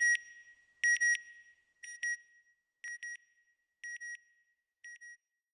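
Electronic beeping sound effect: six pairs of short, high-pitched beeps, one pair about every second, each fainter than the last.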